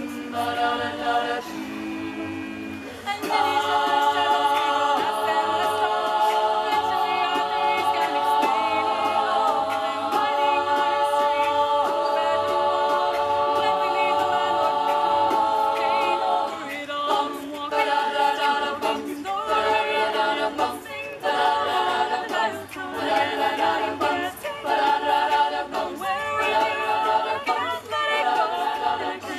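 Women's a cappella group singing in close harmony with no instruments. Softer voices in the first few seconds, then a loud full chord held from about three seconds in to about sixteen, after which the singers break into short, rhythmic sung chords.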